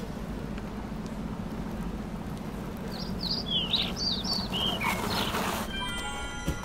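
Longboard wheels rumbling steadily over coarse asphalt as the rider rolls in, with a bird chirping a quick run of notes about halfway through. Near the end comes a short scraping hiss as the board comes to a stop, then a single knock, and music tones begin.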